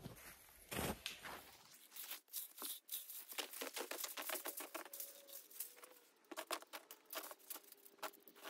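Footsteps crunching through snow: a quick, irregular run of crisp crunches, a few each second.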